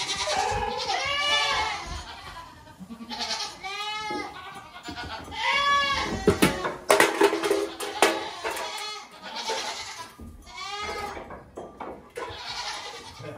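Goat kids bleating over and over, each call a short wavering cry, several calls overlapping. A burst of knocks and clatter comes about six to eight seconds in.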